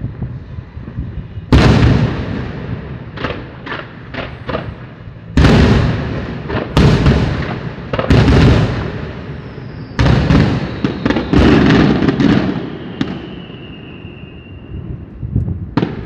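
Aerial firework shells bursting, a heavy boom every second or two, each dying away slowly. A quick run of sharp pops comes about three to four and a half seconds in, and a high whistle near the end.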